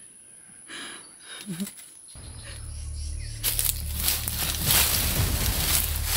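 Dramatic film sound effect: a low steady drone comes in about two seconds in, and a loud rushing hiss swells over it from about three and a half seconds.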